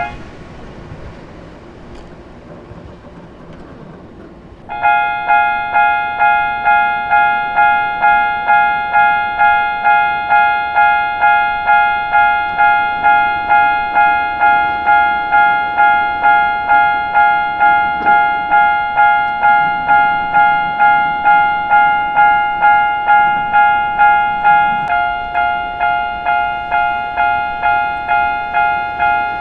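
Railway level-crossing warning bell starts ringing about five seconds in, a ringing tone struck over and over at an even pace of a little under two strikes a second: the crossing is warning of an approaching train. Before it starts there is only low background noise.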